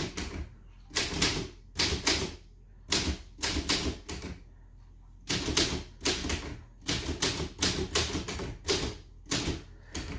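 Old Imperial manual typewriter being typed on: sharp key strikes of the typebars against the platen, coming in quick irregular bursts with short pauses between them.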